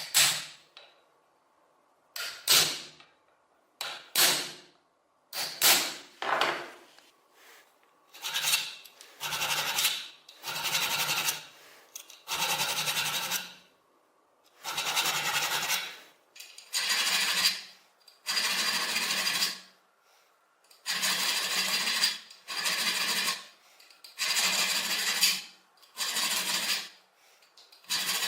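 A hand tool scraping or filing metal in repeated strokes. The first few are short and sharp; from about a third of the way in they become longer rasping strokes, roughly one every second and a half.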